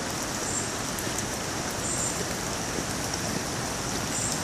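Steady rain falling on jungle foliage and ground, an even hiss. A faint high-pitched chirp sounds three times.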